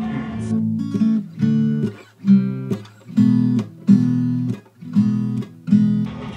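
Music: acoustic guitar strumming chords in a steady rhythm, about one strum a second.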